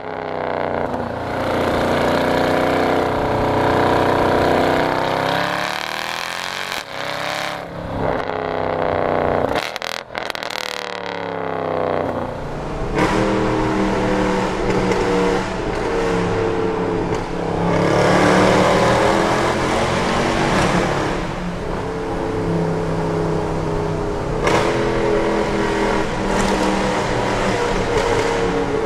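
Mercedes-Benz C63 AMG's M156 6.2-litre naturally aspirated V8, with its secondary cats and resonators deleted, heard at the exhaust tip as the revs climb and fall several times with brief breaks at the gear changes. About twelve seconds in, the same engine is heard from inside the cabin in a tunnel, pulling up through the revs and easing off again.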